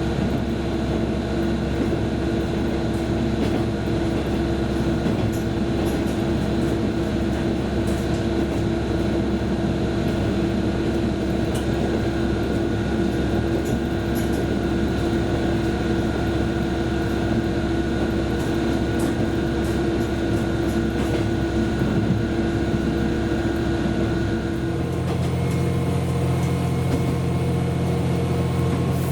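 Train running along the line, heard from on board: a steady ride noise with a constant drive hum. About 25 seconds in, the hum shifts to a lower note.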